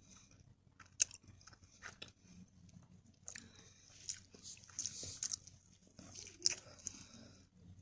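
Close-up chewing of a soft durian-and-cream dessert, with scattered wet lip smacks and mouth clicks.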